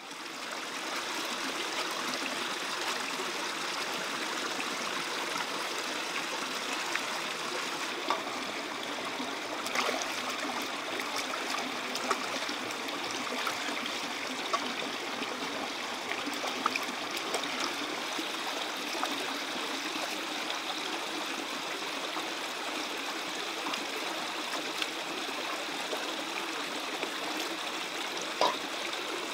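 A stream running steadily over rocks, fading in at the start, with a few brief clicks now and then.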